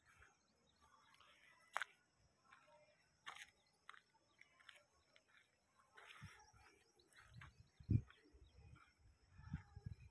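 Quiet outdoor ambience with faint scattered bird chirps and a couple of sharp clicks. In the second half there are low muffled thumps on the microphone, the loudest about eight seconds in.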